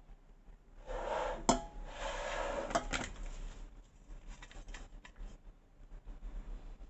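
Objects being handled: a stretch of rustling about a second in, with sharp clicks at about one and a half and three seconds, then scattered light taps and knocks.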